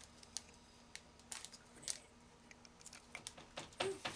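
Irregular light clicks and crinkles of a plastic snack package and paper being handled, with a few louder ticks near the end.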